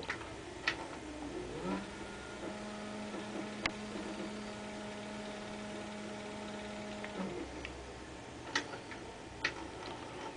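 Low electrical hum from the TV and VCR while the film's soundtrack has dropped out and the tape picture breaks up into noise bars. A steady low tone holds for about five seconds in the middle, with a few sharp clicks scattered through.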